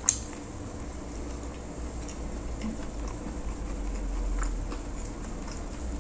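Close-up chewing of a tender whole chicken gizzard and liver wrapped in intestine: soft wet mouth sounds, with a sharp click right at the start and a few faint ticks later.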